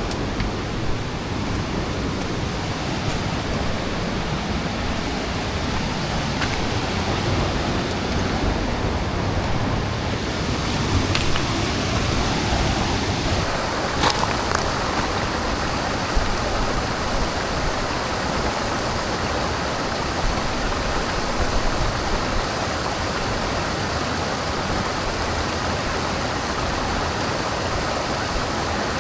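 Steady rush of flowing water from a mountain river or waterfall, with a few faint clicks partway through.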